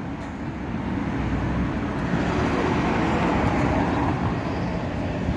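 Steady street traffic noise, a low rumble with no single event standing out.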